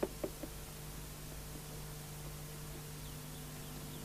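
Quick light cartoon footsteps of characters running, a rapid patter that fades out within the first half second, leaving a faint steady low hum. A few faint high chirps come near the end.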